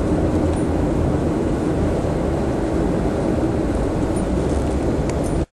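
Steady road and engine noise of a car driving, heard from inside the moving car, cutting off abruptly near the end.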